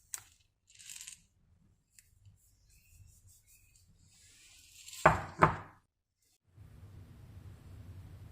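Kitchen handling sounds: a few light clicks, then two sharp clinks of hard kitchenware about half a second apart, followed by a steady low hum that sets in near the end.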